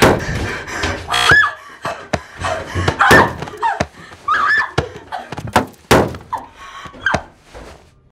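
An irregular run of hard thuds and bangs, about a second apart at first and then faster, with a few short high squeals between them.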